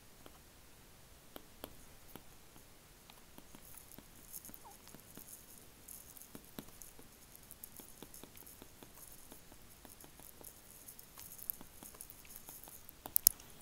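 Stylus tapping and scratching on a tablet's glass screen during handwriting: faint, irregular ticks and scrapes, with a few sharper taps near the end.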